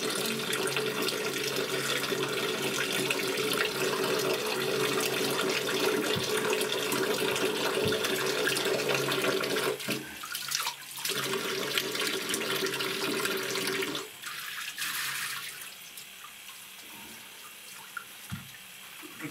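Water running from a bathtub tap and hand shower as a cat is rinsed, a steady hiss that breaks off briefly about ten seconds in. About fourteen seconds in the flow drops to a much quieter run.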